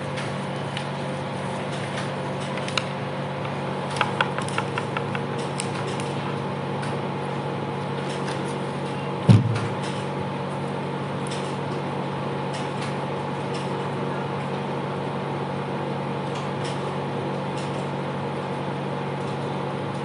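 Steady low hum of background room noise, with a quick run of faint clicks about four seconds in and a single loud thump about nine seconds in.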